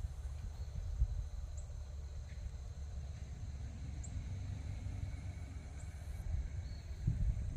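Outdoor ambience dominated by wind rumbling on the microphone, with a faint steady high insect drone and a few brief high chirps.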